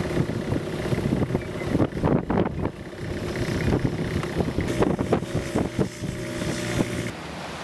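Long-tail boat's engine running steadily under way, with a few irregular sharp knocks over it; the engine's steady note drops away about seven seconds in.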